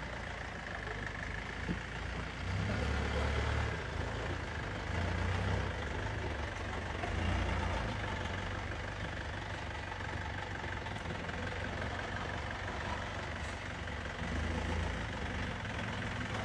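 Swaraj Mazda flatbed tow truck's diesel engine running at low revs as the truck pulls slowly forward, its low rumble rising and falling a few times with the throttle.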